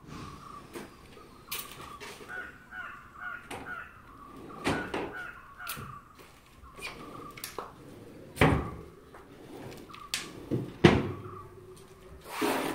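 Crows cawing repeatedly, mixed with several sharp knocks and thuds, the loudest about eight and eleven seconds in.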